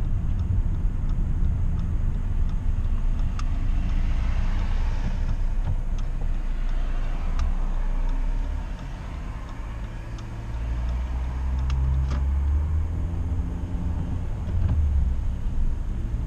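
Honda Civic's 1.4-litre petrol engine running while driving, with road rumble underneath and the engine note shifting up and down with speed. It goes quieter for a moment about halfway through, then picks up again.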